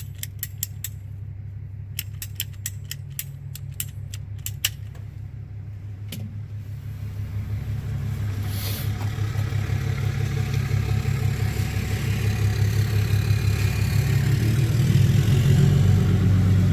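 A string of sharp clicks over the first six seconds, then a passing Dodge diesel pickup's engine rising steadily louder as it approaches, loudest near the end.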